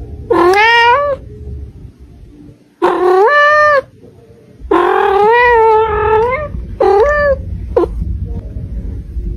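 A cat meowing loudly up close: four drawn-out meows, each rising in pitch, the third the longest and wavering, then a short chirp-like meow near the end.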